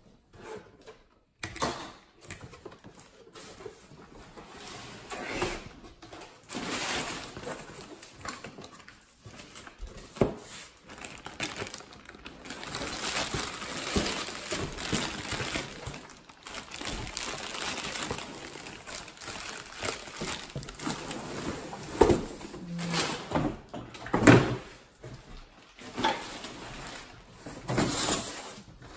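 Unpacking a cardboard box: plastic bags and paper packing rustling and crinkling as parts are pulled about, with cardboard flaps scraping and a few knocks and thumps near the end.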